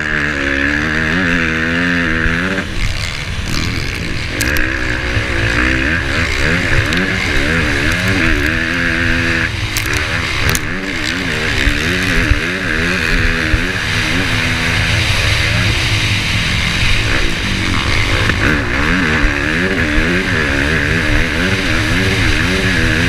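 Dirt bike engine racing over rough ground, heard up close from the rider's helmet, its revs repeatedly climbing and dropping as the throttle opens and rolls off and the gears change, over a steady hiss.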